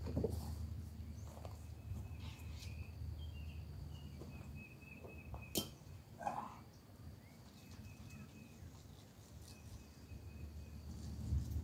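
Quiet outdoor ambience: faint bird chirps now and then over a low steady rumble, with one sharp click a little past halfway. The low rumble grows louder near the end.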